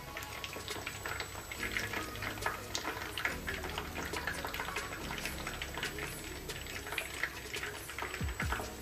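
Cookie dough pieces deep-frying in hot refined oil on a low flame: a steady sizzle full of small, fast crackles.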